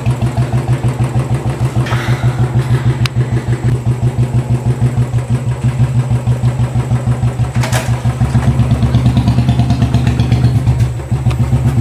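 Motorcycle engine running at low revs with an even pulsing beat, a sharp click about three seconds in; it grows a little louder for a few seconds near the end, then eases off.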